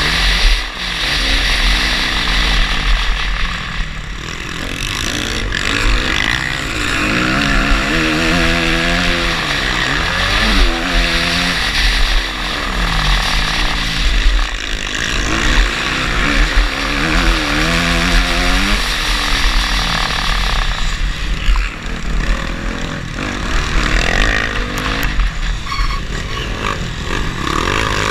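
Motocross dirt bike engine heard from the rider's onboard camera, revving up and easing off again and again as it accelerates and changes gear, over a steady low wind rumble on the microphone.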